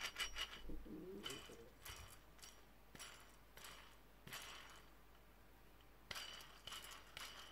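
Faint, intermittent rasping clicks as the axle is turned by hand in a freshly greased vintage Normandy high-flange hub, its cones and lock nuts just tightened. A faint low wavering sound about a second in.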